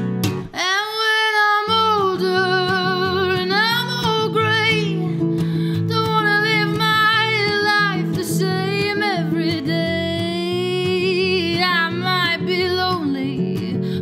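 A woman singing long, wavering held notes over a strummed acoustic guitar.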